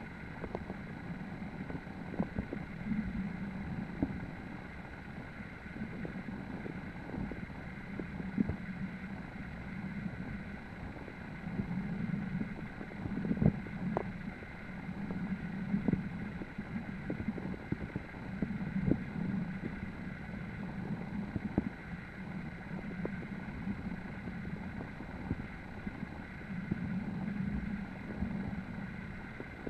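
Muffled rush of river current heard through an underwater camera, swelling and easing every few seconds, with scattered small ticks and knocks.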